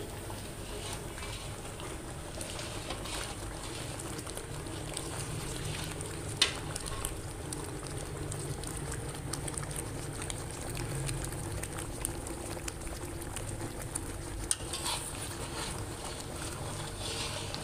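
Thick, granular sohan halwa mixture bubbling and sizzling in an iron karahi near the end of its cooking, stirred and scraped with a long metal spatula. The spatula clicks against the pan now and then, sharpest about six seconds in. A low steady rumble runs underneath.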